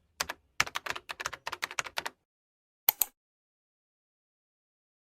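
Fast typing on a keyboard: a quick run of key clicks for about two seconds, then a single sharper keystroke about a second later.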